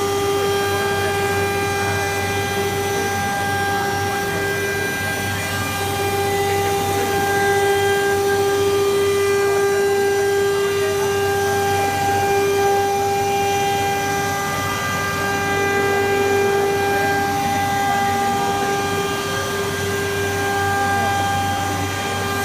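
COSMEC FOX CNC nesting centre running, giving a loud steady whine at one unchanging pitch with overtones over a rushing machine noise.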